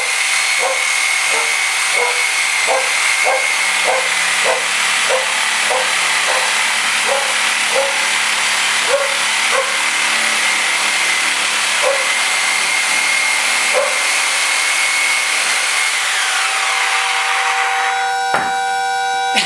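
DeWalt reciprocating saw running with a Sawzall blade, cutting through a frozen turkey: a loud steady rasp with a high whine. Short repeated knocks come about every half second through most of it, and the whine falls in pitch near the end as the saw slows.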